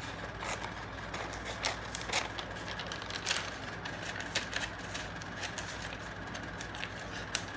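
Scissors snipping through a sheet of paper in short, irregular cuts, each snip a brief sharp click, over a steady low background hum.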